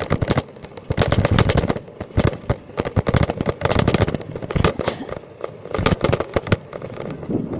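Irregular crackling and knocking on the microphone of a phone tied to the handlebars of a moving bicycle. The sound comes in dense clusters of sharp clicks with short quieter gaps.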